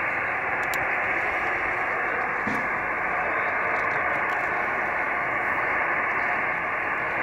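Steady hiss of receiver noise from an Icom amateur-radio transceiver's speaker, narrow and thin like a radio voice channel, as it listens on the FO-29 satellite downlink.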